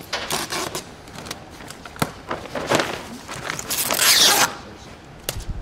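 Clear plastic sheeting rustling and crinkling under hands, then packing tape ripped off its roll with a loud rasp about four seconds in.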